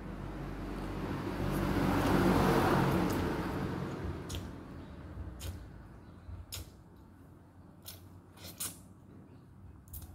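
A passing vehicle's rumble swells to a peak in the first few seconds and fades away. After that come short, sharp slurps and sucks of spicy instant noodles being eaten off chopsticks, with a quick cluster near the end.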